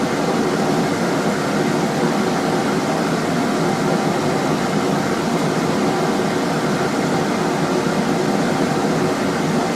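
Steady rushing noise of a blacksmith's forge running, with no hammer blows.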